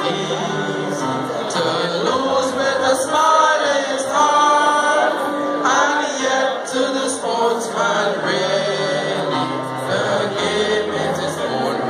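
A large group of people singing a song together in chorus, holding long notes.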